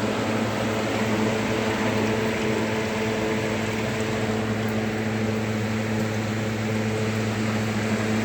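Hindware Vectra 85 L air cooler running: a steady fan rush with a constant low motor hum.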